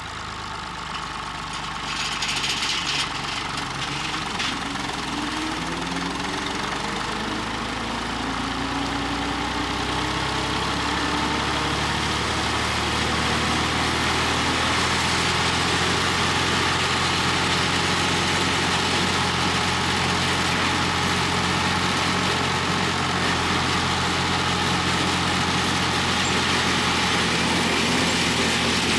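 Massey Ferguson 35 tractor engine running steadily, growing louder as it comes closer over the first half, its pitch shifting for several seconds before it settles to an even note.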